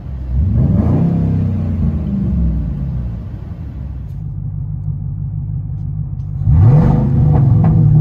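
A naturally aspirated Ford F-150 Lariat V8 blipped once through its exhaust, rising and falling back toward idle in the first few seconds. After a steadier stretch, a supercharged Ford SVT Lightning 5.4-litre V8 is revved sharply about six and a half seconds in and held up loud.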